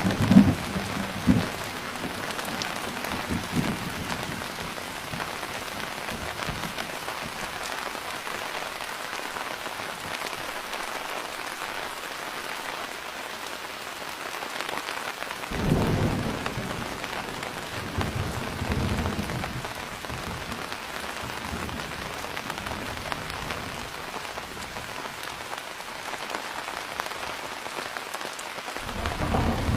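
Steady rain falling, with rolls of thunder rumbling in at the start, about halfway through and again a few seconds later.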